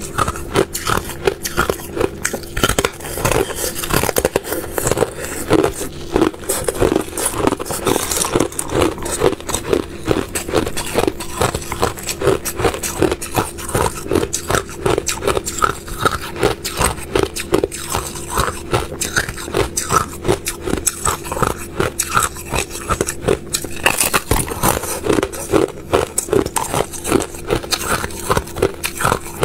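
Thin sheets of clear ice being bitten and chewed close up: a dense, continuous run of crisp cracks and crunches.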